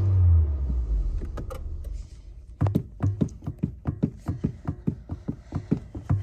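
Car engine coming down off a rev, its note falling and fading over the first two seconds. About two and a half seconds in, a quick, even percussive beat of music starts and grows louder.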